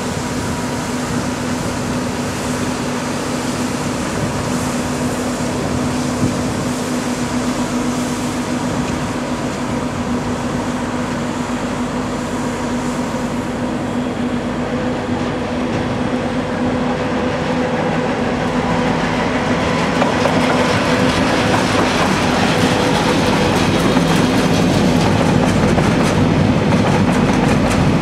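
Class 66 diesel freight locomotive passing with a steady engine hum, hauling hopper wagons. Through the second half the rumble and clickety-clack of the wagon wheels over the rails grows louder.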